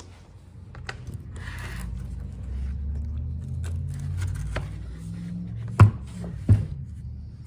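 Metal drive-shaft tube of a Stihl FS110 trimmer being pushed and twisted into the clutch housing of the power head, a low scraping rumble of metal sliding on metal as the square drive end is worked into place. Two sharp knocks come near the end, less than a second apart.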